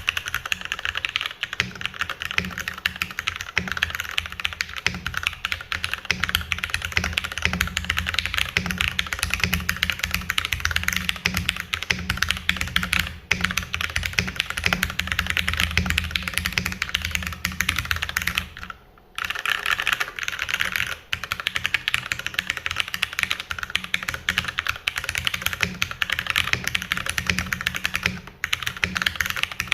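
Steady typing on a Romeo 40% custom mechanical keyboard with fully modded Cherry MX Hyperglide Black linear switches, an aluminium plate and a 3D-printed case, giving a dense run of clacky keystrokes. The typing breaks off for a moment about two-thirds of the way through.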